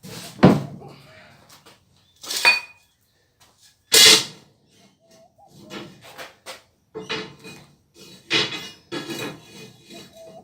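Hard objects being handled and set down: three sharp knocks in the first four seconds, the second with a brief metallic ring, then a run of lighter clatters and knocks.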